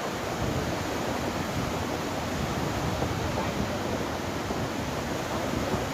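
Floodwater of the Tinau River rushing in a steady, dense wash of noise.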